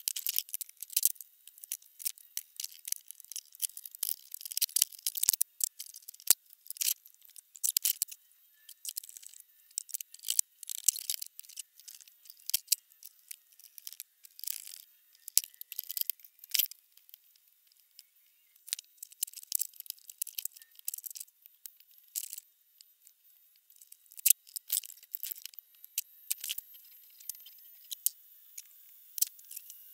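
Irregular light clicks, taps and scrapes of hand tools and metal parts being handled while a 3D printer's power supply and wiring are worked on; the sounds are thin and high-pitched, with short gaps between them.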